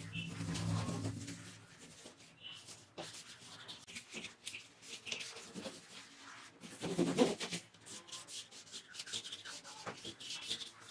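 A scrubber rubbing a baking soda and lemon paste over the inside walls of a small fridge, in irregular scratchy strokes, a little louder about seven seconds in.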